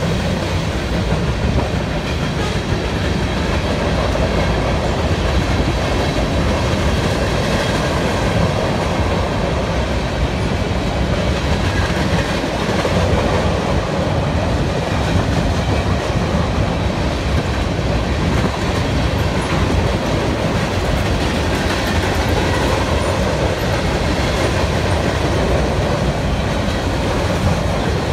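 Freight train's covered hopper and tank cars rolling past, a steady loud noise of steel wheels running on the rails.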